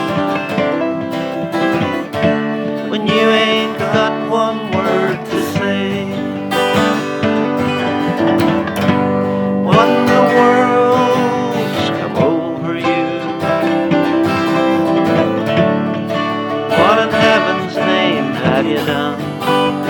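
Acoustic guitar playing an instrumental passage of a country-folk song, strummed chords under a wavering melody line.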